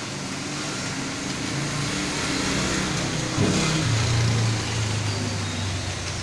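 A motor vehicle engine passing close by, growing louder, with its pitch dropping about three and a half seconds in and then holding low, over faint computer keyboard typing.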